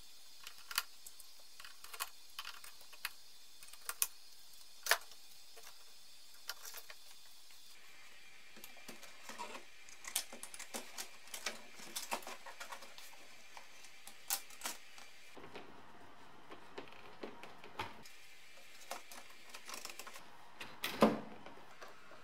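Scattered light clicks and taps of hard plastic trim and a small hand tool as an instrument cluster is fitted into a BMW E30 dashboard, with one louder knock near the end.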